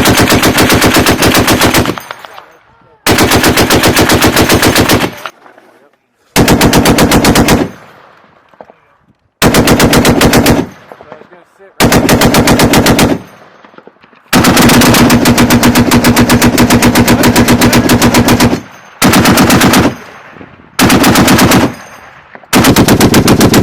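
Belt-fed machine gun firing nine bursts of rapid automatic fire, most lasting one to two seconds and one lasting about four seconds, each trailing off in a short echo.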